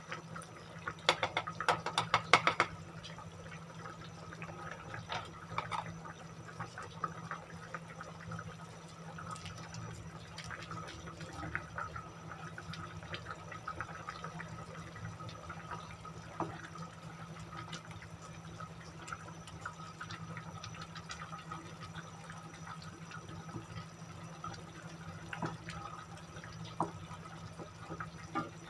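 A pot of tomato-based stew simmering, its broth bubbling with small scattered pops over a low steady hum. About a second in there is a loud, brief cluster of wet splats and clicks as thick pork-and-beans sauce is poured into the pot from a pouch.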